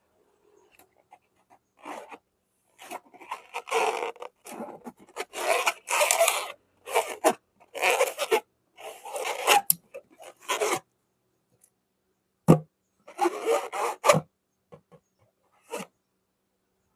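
Rubber balloons being handled: irregular bursts of rubbing and scraping for most of the stretch, a single sharp snap about twelve and a half seconds in, then more rubbing and a few light clicks.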